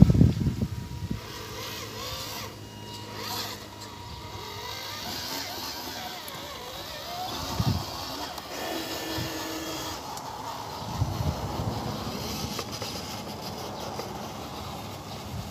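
Small electric motor and gearbox of a homemade PVC RC dump truck running with a steady whine as it drives over rough dirt. A few loud knocks come at the start as the soil slides out of the tipped bed.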